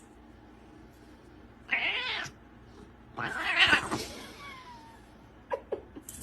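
A cat meowing twice, about two seconds in and again just after three seconds, the second call longer and louder with a falling end. Two short clicks follow near the end.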